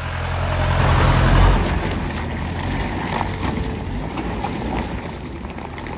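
Mahindra off-road jeep engines working through deep mud. For the first second and a half a jeep's engine runs low and heavy, climbing in level; after a cut a Mahindra Thar's engine is quieter and its tyres slop and squelch through muddy ruts, fading slowly.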